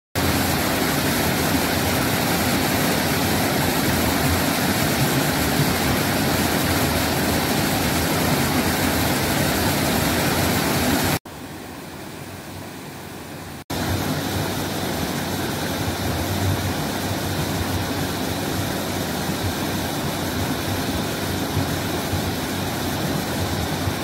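Steady rush of water from a waterfall and mountain stream. About eleven seconds in it drops abruptly to a quieter flow for two to three seconds, then comes back loud.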